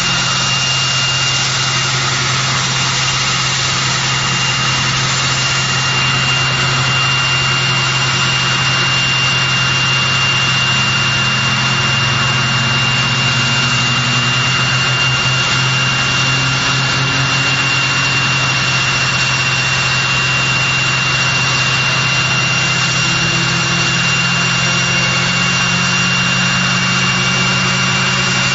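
Rolls-Royce Tyne turboprop engines of a Vickers Vanguard running on the ground, loud and steady, with a high whine held throughout. A lower tone slowly rises in pitch partway through.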